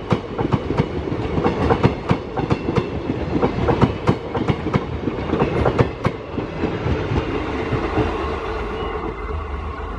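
Steel wheels of a passing rake of Indian Railways passenger coaches clattering over the rail joints in a rapid run of clicks. About six seconds in, as the last coach goes by, the clicks thin out into a steadier rumble as the train moves away.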